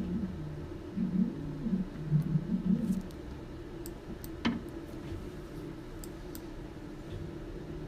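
Motorized sample stage of an X-ray inspection system moving in short runs, a low whine that rises and falls several times in the first three seconds over a steady machine hum. A single sharp click comes about four and a half seconds in.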